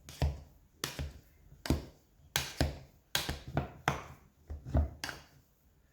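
Hand potato masher pressed repeatedly into hot boiled potatoes in a saucepan, giving a series of short knocks a little faster than one a second.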